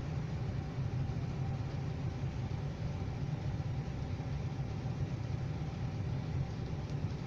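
Steady rain noise with a strong low rumble.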